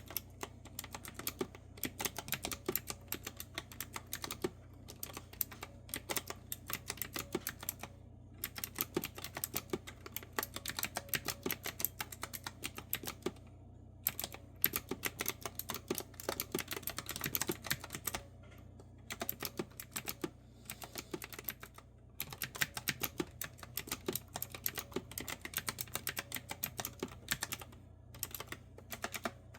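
Clicky retro-style keyboard with round keycaps being typed on: crisp keystrokes in quick, steady runs, with brief pauses every few seconds.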